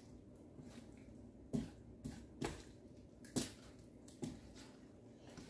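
Kitchen tongs tapping lightly on a cutting board while turning raw seasoned chicken strips: four soft taps a little under a second apart.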